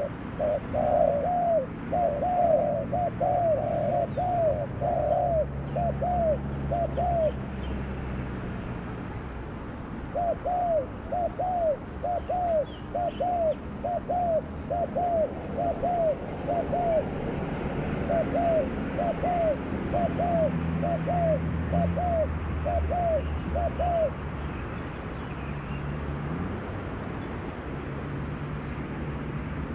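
Spotted dove (terkukur) cooing: a run of short rising-and-falling notes, about two a second, in three bouts of several seconds each, stopping about three-quarters of the way through. A low drone runs underneath throughout.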